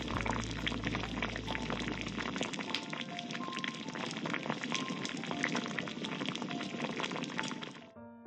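Thick red braised-chicken stew bubbling and popping as it simmers in a stainless steel pot, with a dense crackle of small bursting bubbles. A low hum underneath stops about two and a half seconds in, and the bubbling cuts off shortly before the end.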